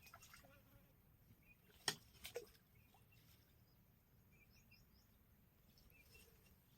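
Near silence: faint outdoor background with scattered faint chirps, broken by two sharp clicks about two seconds in.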